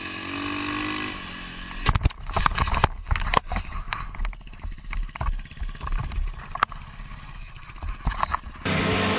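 Dirt bike engine running, its pitch dropping, then a crash: a run of hard knocks and scraping as the motorcycle and rider go down and slide on the asphalt. Music starts near the end.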